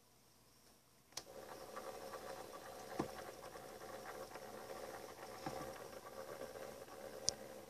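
Small motor of a rotating display turntable clicking on about a second in, then running with a steady whirr and faint scratching, with a couple of light knocks and a sharp click near the end.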